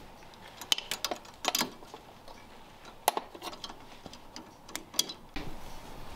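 Socket ratchet and wrench tightening a bolt on a metal bracket: irregular clusters of sharp ratchet clicks and metal-on-metal clinks.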